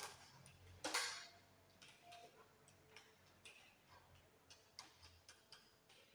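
Faint scattered clicks and taps of wires and fittings being handled in a plastic distribution box, with one louder clack about a second in.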